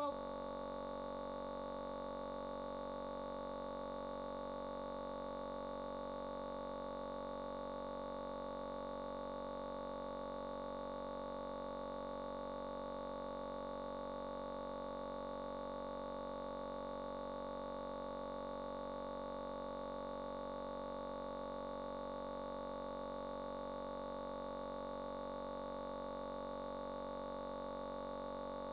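Steady electronic drone of several held tones, unchanging in pitch and level throughout.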